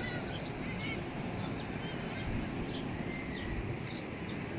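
Birds giving short, high chirps several times, over a steady low rushing background.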